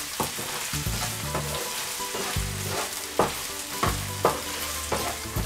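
Diced onions sizzling in hot oil in a nonstick frying pan as they sauté toward golden brown, stirred with a wooden spatula that scrapes and knocks against the pan several times.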